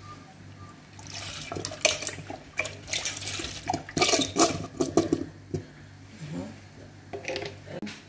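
Water-thinned barbecue sauce glugging and splashing out of an upturned plastic bottle into a stainless steel mixing bowl, in irregular spurts.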